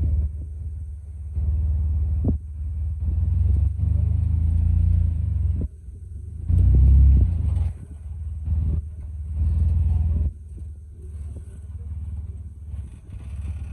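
Jeep engine running close by as it crawls over rock, the throttle coming on in spells of one to a few seconds with sudden drops between, and a few sharp knocks.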